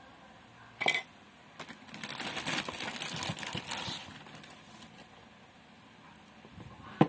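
Handling noise from unboxing a power supply: a sharp knock about a second in, a couple of seconds of rustling and scraping, and another sharp knock near the end.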